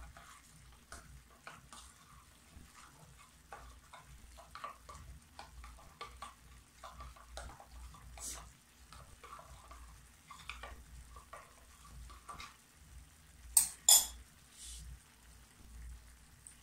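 Cauliflower stir-frying in a wok, with a faint sizzle under scattered light taps and clinks of kitchenware. Two sharp clicks, the loudest sounds, come close together about three seconds before the end.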